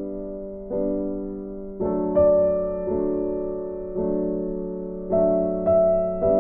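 Background piano music: slow chords, each struck about once a second and left to ring and fade.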